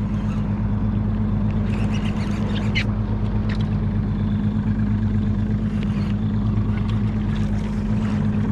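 Steady low drone of a fishing boat's engine running, with a few faint clicks and knocks on top.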